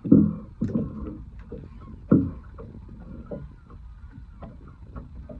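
Water slapping and knocking against the hull of a small boat, with three low knocks, the loudest at the very start and about two seconds in, over a steady low wash.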